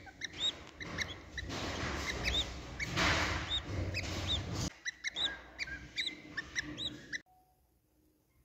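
Budgerigar chicks cheeping: quick, repeated short high squeaks over a hiss, cutting off abruptly near the end.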